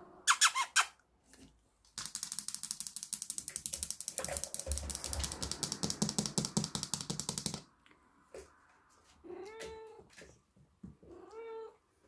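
Kitten meowing twice near the end, two short calls that rise and fall in pitch. Before that, a rapid clicking rattle runs for about five and a half seconds, and a brief sharp sound comes just after the start.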